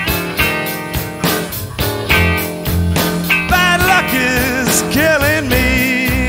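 Electric blues band playing an instrumental break: a lead line of bent, wavering notes over a steady drum beat and bass.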